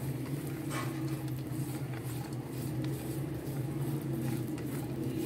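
Dry fruits (sliced coconut, almonds, pistachios and raisins) stirred and pushed around in a little ghee in a nonstick pan with a silicone spatula: light scraping, with a short stroke about a second in. Under it runs a steady low hum, the loudest thing heard.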